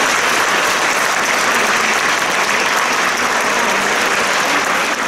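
Concert hall audience applauding steadily after the music ends, a dense even clapping.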